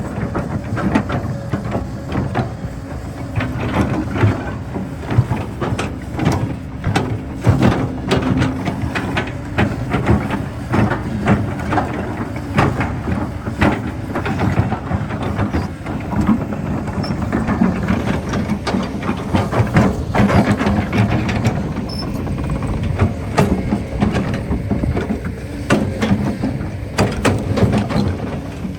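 Kobelco hydraulic excavator's diesel engine running under load, with frequent knocks and clatter of digging throughout.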